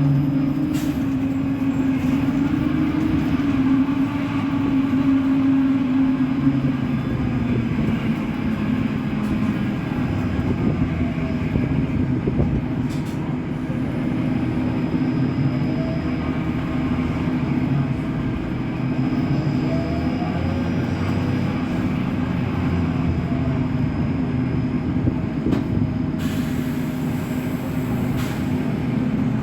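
Caio Millennium BRT trolleybus on a Scania K270UB chassis running, its electric traction motor giving a steady low hum over the rumble of the bus.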